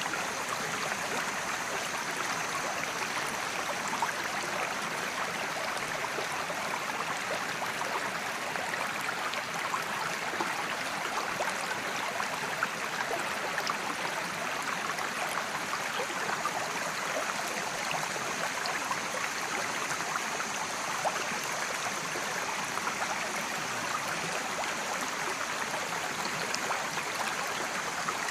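Mountain creek flowing over rocks: a steady, even rushing and splashing of water.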